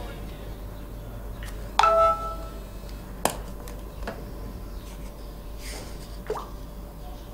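A mobile phone's text-message alert: one short pitched chime about two seconds in, followed by a few clicks and knocks as the phone is picked up and handled.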